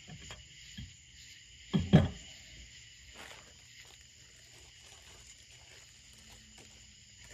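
Steady chorus of insects, with a brief louder sound about two seconds in that drops in pitch.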